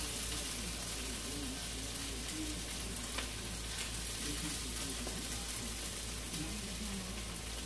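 Reheated cabbage sizzling in a hot pan, a steady crackling hiss, with a couple of light taps from a serving utensil.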